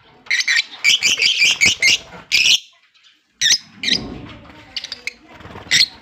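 Fischer's lovebirds calling: a rapid run of shrill chirps for about two and a half seconds, then a short pause and a few single sharp shrieks.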